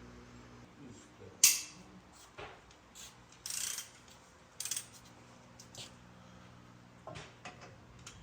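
Hand tools working bolts loose: scattered sharp metallic clicks, the loudest about a second and a half in, and short raspy runs of a ratchet wrench around the middle, over a faint low hum.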